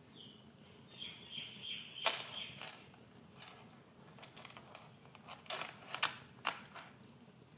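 Wood fire crackling, with a string of separate sharp pops, the loudest about two seconds in. A thin, wavering high whistle sounds during the first two seconds.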